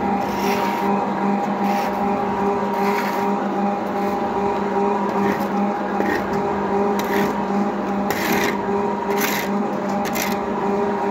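Coal briquette extruder press running steadily with an even, constant hum. Short scrapes come every few seconds as the extruded coal briquettes are broken off at the die and handled.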